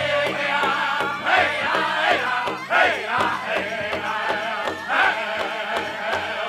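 Powwow drum group singing together in high voices over a big drum struck in a steady beat.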